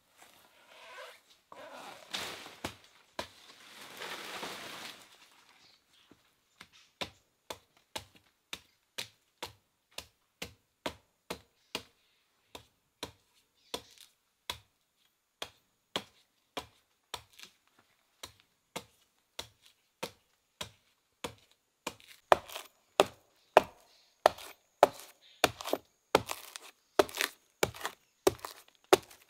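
Wood being chopped with a blade: steady, evenly spaced strikes about two a second, growing louder in the last quarter. A rustling noise runs under the first few strikes.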